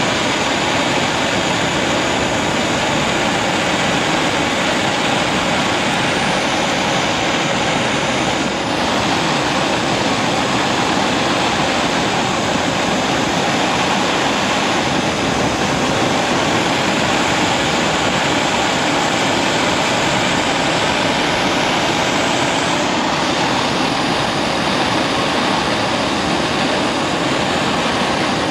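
Gas blowtorch flame burning with a steady rushing noise as it heats paint-coated spanners, baking on their coating.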